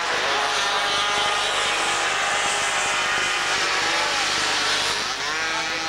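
Several 50cc two-stroke racing mopeds buzzing at high revs as they race past, their engine notes overlapping, with a rising pitch near the end as a rider accelerates.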